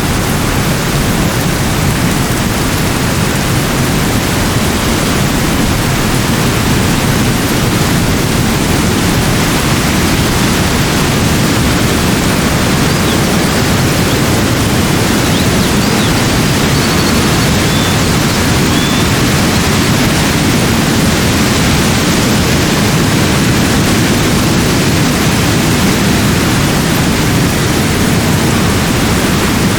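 Steady, loud rushing noise with no breaks, heaviest in the low end. A few faint, short high chirps come through near the middle.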